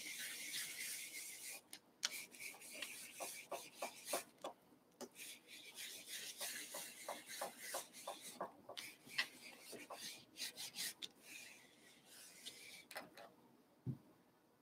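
Faint rubbing and scraping of a tool worked over cardstock pressed onto an inked stamp, in patches, with a run of light quick ticks through the middle and a soft thump near the end.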